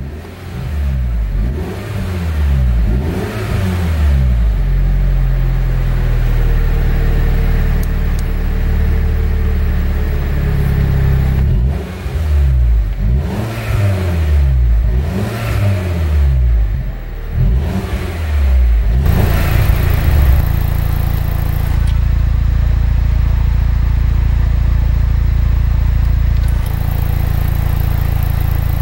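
MINI Cooper S (F55) 2.0-litre turbocharged four-cylinder running through a Remus valved sport exhaust: blipped again and again in Park, each rev rising and falling, for most of the first two-thirds, then settling to a steady idle for the rest.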